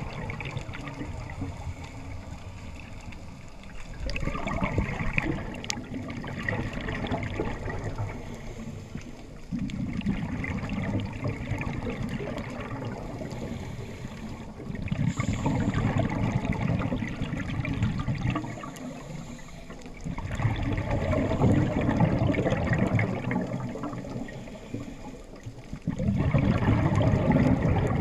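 Underwater sound of a scuba diver's exhaled bubbles from the regulator: gurgling, rushing surges about every five to six seconds, with a steady low water noise between them.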